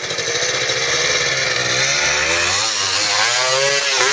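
Dirt bike engine revving hard under load as the bike climbs a steep rock ledge, the pitch swinging up and down with the throttle in the second half.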